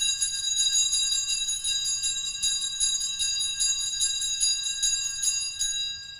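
Altar bells (sanctus bells) shaken in a rapid, continuous peal, marking the elevation of the chalice at the consecration. The shaking stops near the end and the bells ring on briefly as they die away.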